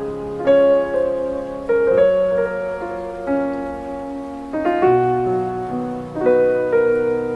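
Slow, gentle piano music: sustained chords, with a new chord struck every second or two and left to ring.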